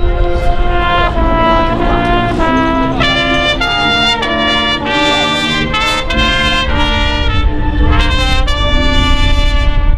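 A high school marching band's brass section playing held chords and moving lines, with trumpets on top; the notes change about once a second, and the full band swells in about three seconds in and again near the end.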